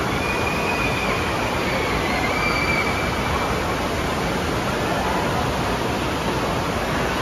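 Steady rushing of water pouring out of an enclosed water-slide tube into its splash-down runout channel, churning the pool white.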